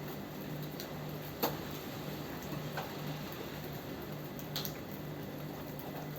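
Steady rain with scattered louder drips and taps of drops landing close by, the sharpest about one and a half seconds in.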